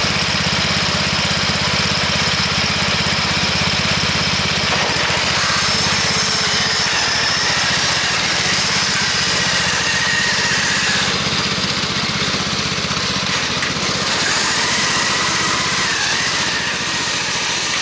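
Racing-modified riding lawn mower engine running at a steady pace, with a faint higher whine that wavers now and then.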